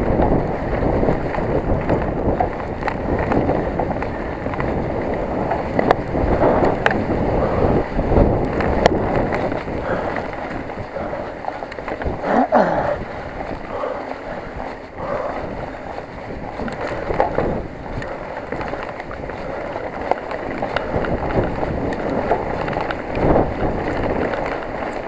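Specialized Enduro 29 mountain bike descending at speed over rough ground: wind buffeting the microphone, with a steady rush of tyre noise and constant small knocks and rattles from the bike.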